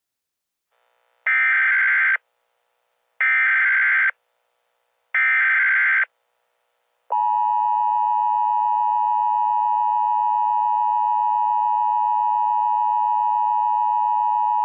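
Emergency Alert System tones: three roughly one-second bursts of the SAME digital header, a rapid warbling data tone, about two seconds apart. About seven seconds in the steady two-tone EAS attention signal starts.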